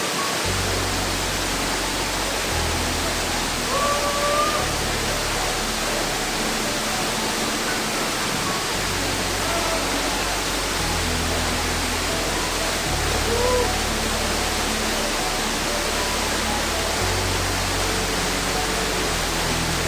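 Waterfall: a steady, loud rush of falling water. Soft background music with low held notes that change every couple of seconds plays under it.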